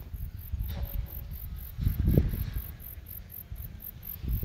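Insects chirping in a fast, even, very high-pitched pulse, about four pulses a second. Over it, low rumbling rubs and bumps from a cat rubbing against the microphone, loudest about two seconds in and again near the end.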